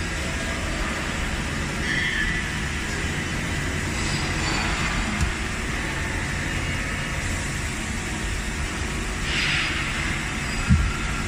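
Nakamura WT-250MMY twin-spindle CNC lathe running, a steady mechanical hum and rumble as its sub-spindle moves across to face the main spindle. There is a short thump about five seconds in, a brief burst of hiss about nine seconds in, and a sharper thump near the end.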